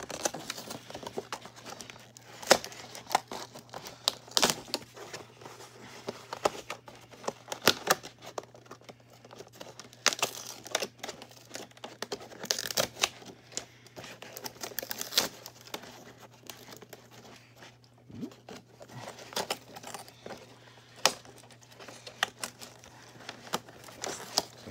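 Clear plastic tape and fasteners being peeled and torn off the cardboard backing of a doll box: irregular crinkling, tearing and sharp snaps, with a quieter stretch past the middle.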